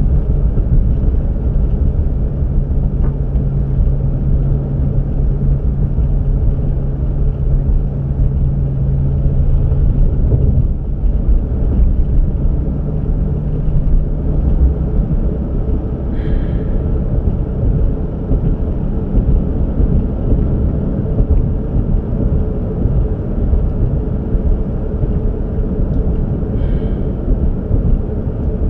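Steady low rumble of a car on the move, road and engine noise, with the engine hum changing pitch and fading about ten seconds in. Two faint short chirps, one midway and one near the end.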